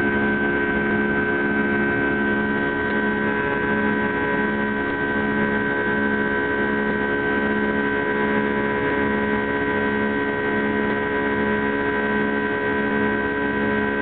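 Boeing 757 turbofan engine at climb power, heard from inside the cabin during climb-out after takeoff: a steady drone with several held tones and a low tone that throbs evenly.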